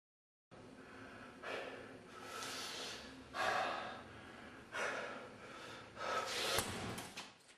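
A man breathing hard, about five loud breaths in and out spread over several seconds.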